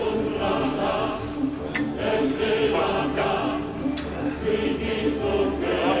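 Choral music, voices singing sustained notes together.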